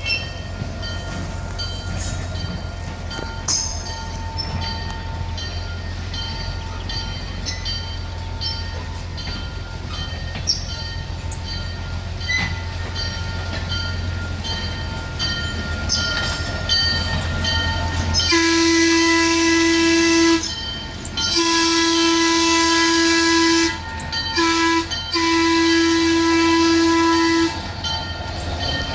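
Train whistle sounding the long-long-short-long crossing signal: four blasts of one steady note, starting about two-thirds of the way in. Before it there is a steady low rumble from the running train.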